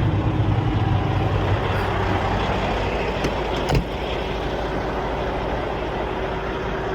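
Semi truck's diesel engine running at low speed while the rig backs up to a dock, the deep rumble easing off about three seconds in. A single sharp thump comes about four seconds in, after which the engine runs a little quieter.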